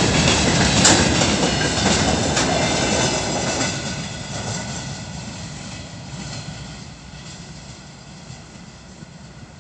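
Open freight wagons of a long freight train rolling past, steel wheels clattering on the rails with a few sharp knocks in the first few seconds. The sound fades steadily as the last wagons pass and draw away.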